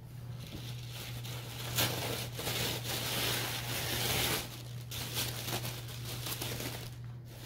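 Tissue paper rustling and crinkling as it is pulled open by hand, loudest through the first half.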